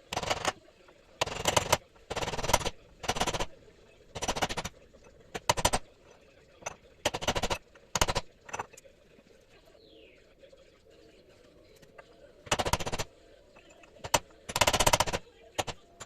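Chisel hammering on the old lower ball joint of a Ford Transit wishbone, in about eleven short bursts of rapid blows with a pause of a few seconds in the middle; the groove is being cut into the joint so it can be driven out.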